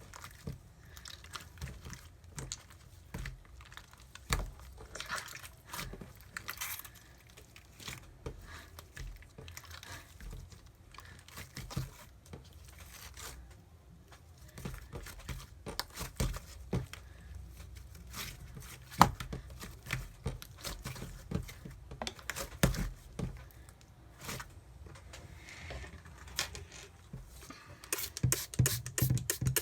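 Light-green slime being played with: a run of sticky crackles, small pops and clicks, coming faster and louder near the end.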